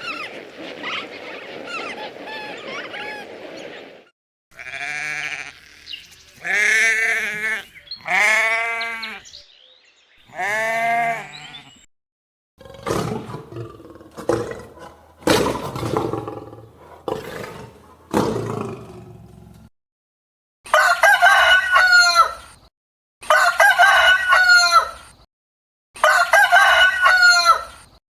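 A series of separate farm animal calls: a few long, pitched calls, then a run of short, sharp calls, ending with a rooster crowing three times.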